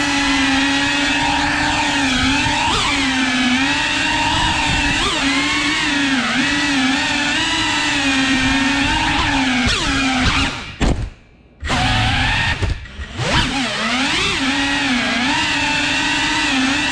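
FPV quadcopter's motors and propellers whining steadily, the pitch wavering up and down with the throttle. About two-thirds of the way through, the sound drops almost away twice, each time for under a second, then comes back.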